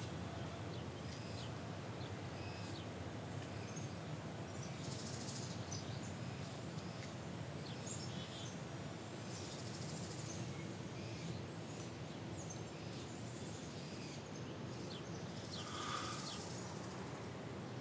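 Outdoor ambience: a steady background hiss with small birds chirping briefly here and there.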